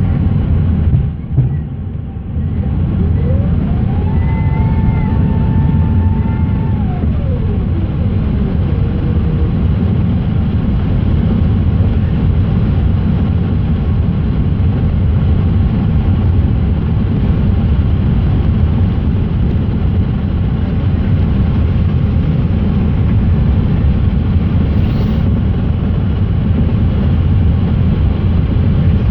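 Airbus A380 cabin noise on approach: a loud, steady low rumble of airflow and engines. About three seconds in, a mechanical whine rises in pitch, holds for a few seconds, then falls away.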